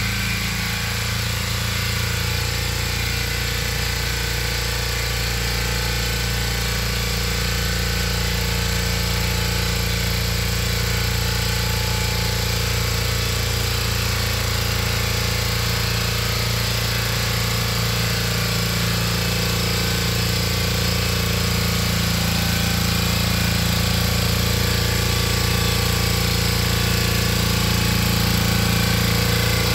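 Valpadana walk-behind tiller's 8 hp, 359 cc Lombardini single-cylinder engine running steadily as it tills the soil. It grows slightly louder near the end as the machine comes closer.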